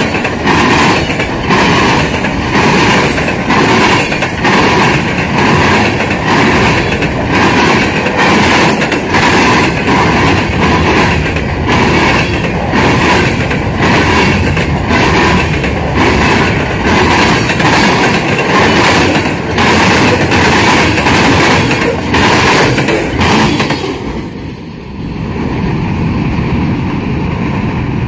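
Freight cars (open-top gondolas and covered hoppers) rolling past at close range, their wheels clicking over the rail joints in a steady clickety-clack rhythm under a continuous rumble. Near the end the sound drops off sharply as the last car passes, leaving a fainter steady rumble.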